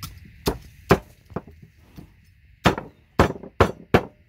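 Knife chopping on a cutting board: about nine sharp, uneven strikes, the hardest coming in a quick run in the second half.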